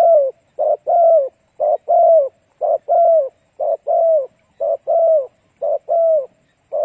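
Spotted dove (cu gáy) cooing: a short note followed by a longer coo that falls in pitch, the pair repeated steadily about once a second. It is the dove's song as used by keepers to rouse decoy birds.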